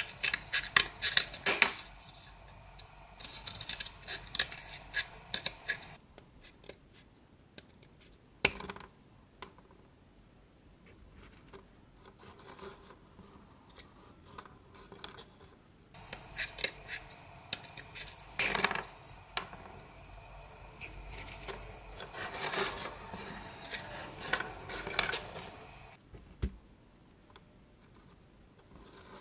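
Scissors snipping through a cardboard toilet-paper tube in quick runs of cuts. Between the runs there are quieter stretches of scratching and rubbing on the cardboard.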